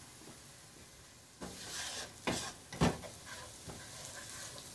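Diced onion sizzling in oil in a nonstick frying pan, stirred and scraped with a wooden spatula, with two sharp knocks of the spatula against the pan. The onion is being softened over the heat for a sofrito. The first second or so is quiet, and the stirring starts about a second and a half in.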